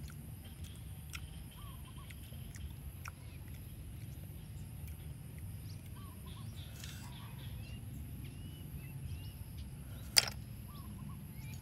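Small birds chirping now and then over a low steady rumble, with one sharp click about ten seconds in as a hand picks a snail shell from the metal wok.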